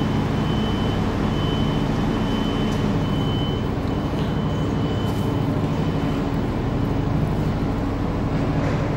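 Iarnród Éireann 22000-class diesel railcar idling at the platform: a steady low engine drone with a faint high whine that comes and goes for the first six seconds or so.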